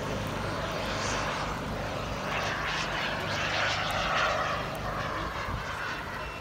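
Radio-controlled model jet flying overhead, a steady rushing engine sound that swells about halfway through and then fades as the jet moves off.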